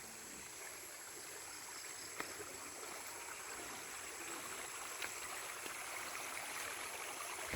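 Small stream flowing, a steady faint rush of water over stones, with a couple of sharp clicks about two and five seconds in.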